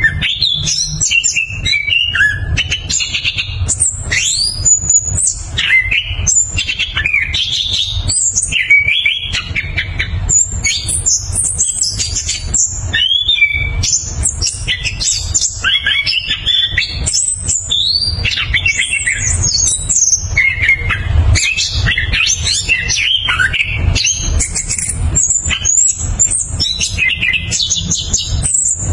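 Chestnut-capped thrush (anis kembang) singing a long, unbroken, fast song of varied whistles, trills and chirps, with phrases tumbling one after another, over a steady low rumble.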